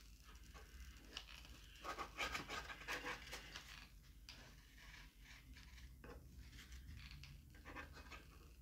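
Faint scratching and rubbing as a styrofoam panel with a glued-in fan is handled in gloved hands, busiest about two to three and a half seconds in.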